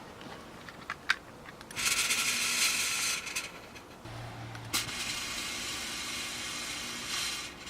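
Snowblower throwing snow: two long stretches of hissing spray, the second starting about five seconds in, with a faint machine hum between them.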